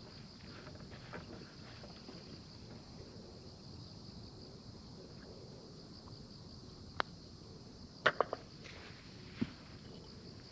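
A putter striking a golf ball once with a sharp click, followed about a second later by a quick cluster of three clicks and then one more knock. A faint steady insect hum runs underneath.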